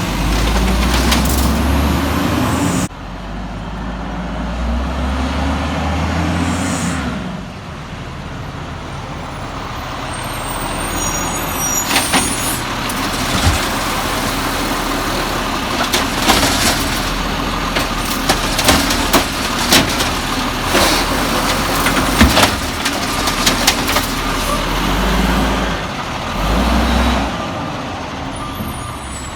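Volvo garbage truck's diesel engine running, with the level dropping suddenly about three seconds in. A run of sharp knocks and bangs follows through the middle.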